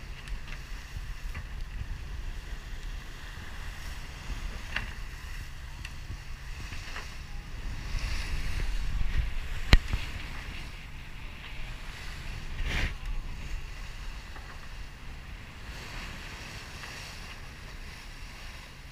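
Wind buffeting the microphone and water rushing past the hull of a sailboat under way, as a steady low rumble and hiss. A few short knocks stand out, the loudest and sharpest about ten seconds in.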